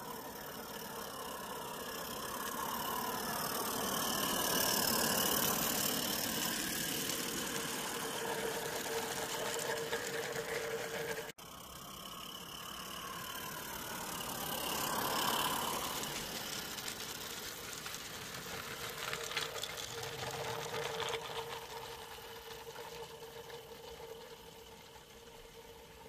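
Small gas-fired live-steam garden railway locomotive, a Regner Konrad on 32 mm gauge track, chuffing and clattering with its train of skip wagons as it runs past. It swells to its loudest about five seconds in, breaks off suddenly, swells again with a patter of wheel clicks, then fades as it moves away.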